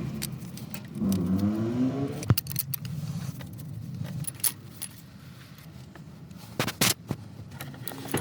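Small metal valve-train parts and tools clicking and clinking against each other on an opened engine cylinder head, with a brief rising tone about a second in and two sharp metal clicks close together near the end.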